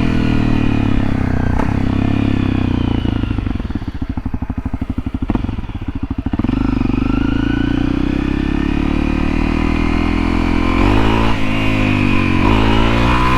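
Honda CRF250L's single-cylinder four-stroke engine running while riding. It drops off throttle to a slow, lumpy pulsing about three and a half seconds in, then revs climb again from about seven seconds in, with gear changes near the end.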